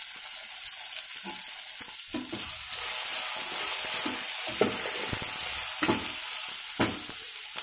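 Sliced onions frying in oil in a pot, a steady sizzle, as spices are stirred through them with a spoon that knocks and scrapes against the pot several times.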